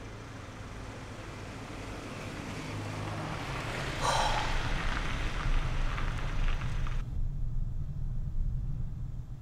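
A low, steady rumble that slowly grows louder. About four seconds in, a louder rushing swell comes in over it, and its hiss cuts off abruptly a few seconds later.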